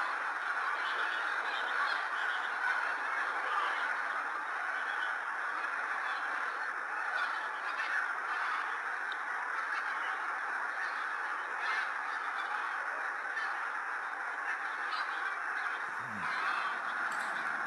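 A large flock of geese calling together: many overlapping honks merging into a continuous din.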